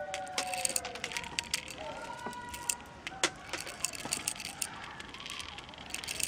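Clicks and light rattling from handling the Walther P38 CO2 air pistol's metal parts, with one sharper click about three seconds in. Faint drawn-out tones slide slowly downward behind them.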